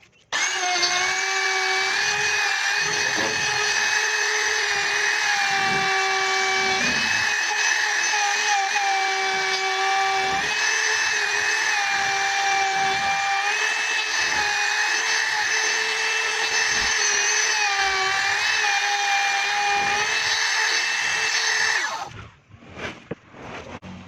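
A handheld electric router (trim router) runs with a steady high-pitched whine while cutting a quarter-circle groove in wood, its pitch dipping slightly now and then under load. It starts just after the opening and is switched off about 22 seconds in.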